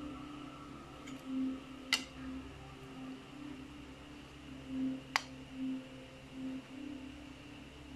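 A metal spoon clinks sharply twice against the pot or bowl while cooked rice is scooped, about two seconds in and again about five seconds in, over a steady wavering background hum.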